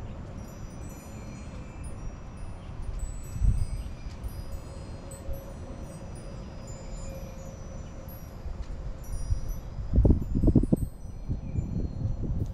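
Wind chimes ringing: light metallic tones at several scattered high pitches, sounding on and off. Underneath, wind rumbles on the microphone, with a stronger gust about ten seconds in.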